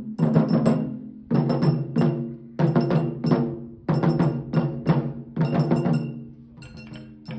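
Wadaiko (Japanese taiko drums) played in ensemble: quick runs of about four sharp strikes, repeating roughly every second and a half, each hit ringing on after it. The strikes grow weaker near the end.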